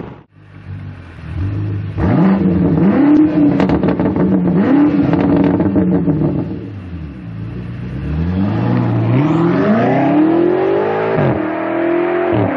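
BMW M8's twin-turbo V8 through a GTHaus aftermarket exhaust: revved several times, the pitch rising and falling back, then the car pulls away under hard acceleration, the pitch climbing steadily with two sharp drops at upshifts near the end.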